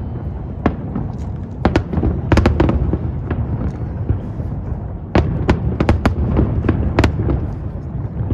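Fireworks display going off: a steady deep rumble of bursting shells with many sharp cracks and bangs, thickest about two seconds in and again from about five seconds.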